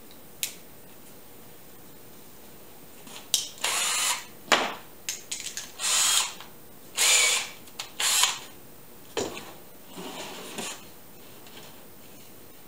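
Cordless drill run in short bursts, about eight over several seconds, as a bit is tightened in its chuck, with small clicks in between.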